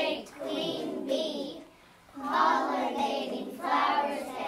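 Young children singing, with a short break about two seconds in.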